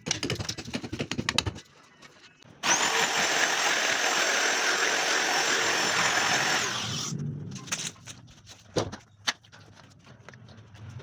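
Electric drill run against a wall to chase a channel for wiring, a loud steady grinding with a high motor whine for about four seconds. Rapid tapping comes before it, and scattered knocks after it stops.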